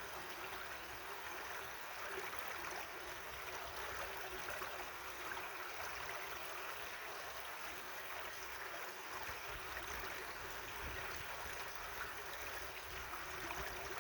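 Stream water running steadily over rocks, a continuous gurgling rush without pauses.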